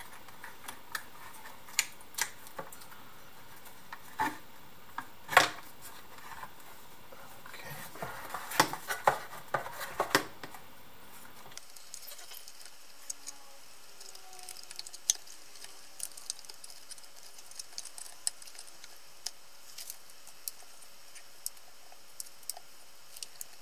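Scattered small clicks, taps and rustles of hands handling cables and plastic parts inside an opened speaker housing, busier in the first half and sparser later.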